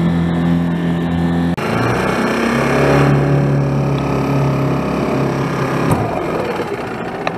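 Small 5 hp Mercury outboard motor running at steady speed, with abrupt changes in pitch about a second and a half in and again near six seconds where clips are cut together.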